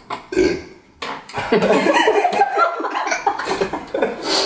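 A man coughing and laughing, his throat burning from a Carolina Reaper chili pepper he has just chewed, with a second man laughing along.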